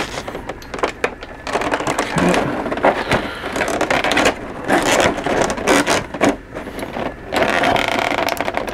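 Clear plastic blister tray being handled and shifted, with an irregular run of plastic crinkling, crackling and clicks.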